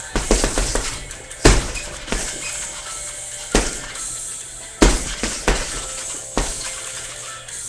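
Punches landing on a hanging heavy bag: sharp thuds at irregular intervals, about eight in all, the loudest about a second and a half in, with the bag's suspension chains jingling. Music plays in the background.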